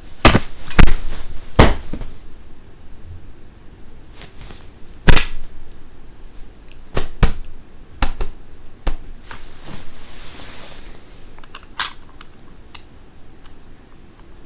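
A string of about a dozen sharp clicks and pops made right at the microphone, irregularly spaced and very loud, the loudest within the first second and about five seconds in. A short breathy hiss comes about ten seconds in.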